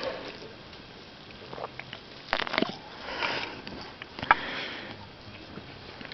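A person sniffing and breathing quietly close to the microphone, with a few short clicks and rustles about two and a half and four seconds in.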